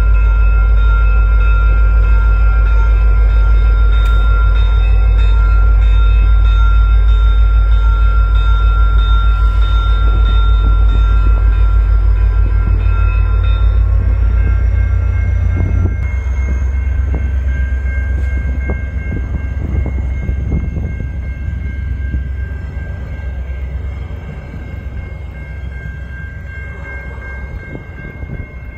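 VIA Rail F40PH-2 diesel locomotive passing close by, its engine a loud deep rumble. From about halfway the passenger coaches roll past with a run of wheel clacks over the rails, fading toward the end.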